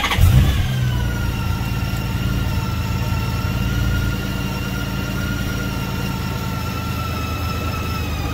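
A 2012 Honda GoldWing GL1800's flat-six engine firing up from cold on its first start after an ECU reset. It catches with a brief rise in revs, then settles into a steady fast idle, with a whine in its note that drifts slowly lower.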